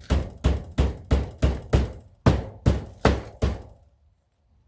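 Hammer striking a nail into old wood: about ten sharp blows, roughly three a second, that stop about three and a half seconds in.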